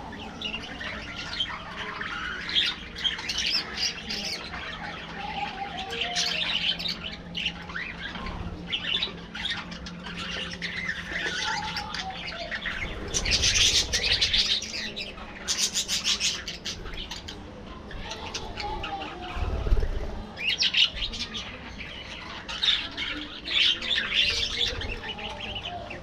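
A flock of budgerigars chattering continuously: overlapping chirps, warbles and squawks, busiest about halfway through and again near the end, with a flutter of wings as one flies across.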